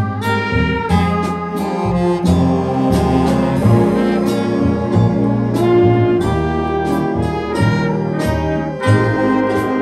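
Student jazz big band playing: saxophones, trumpets and trombones sound together in held chords over a low bass line, with regular short percussive hits.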